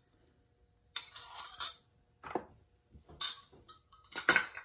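Several short clinks and knocks of kitchen bowls, about five spread through, as a small bowl of beaten eggs is emptied into a mixing bowl and put down.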